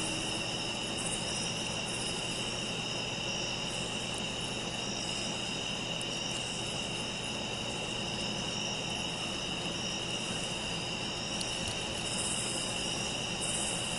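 Night chorus of crickets and other insects: a steady, high-pitched trilling with an upper layer that swells and fades every few seconds.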